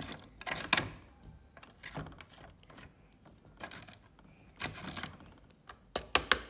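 Irregular small plastic clicks, taps and rustles from a toy slime-factory kit as slime powder is slowly tipped and shaken into its measuring cup.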